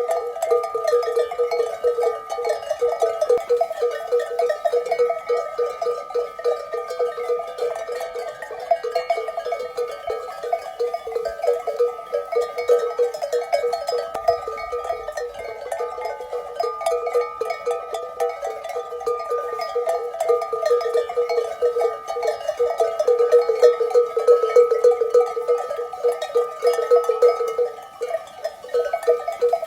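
Many metal livestock bells clanking and jangling together without a break, as from a flock of sheep on the move.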